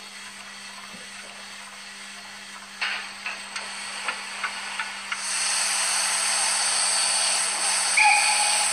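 Zimo MX658N18 sound decoder in a TT-scale BR 95 steam locomotive model playing steam effects through its small speaker, over a steady low hum. A few soft clicks are followed, about five seconds in, by a steady loud steam hiss, with a short whistle-like tone near the end.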